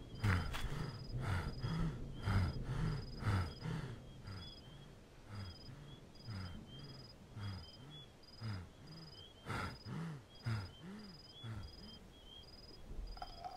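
Crickets chirping in a steady run of short high notes, about two a second. Under them comes a man's low, labored moaning, a groan with each breath, louder in the first few seconds and then fainter.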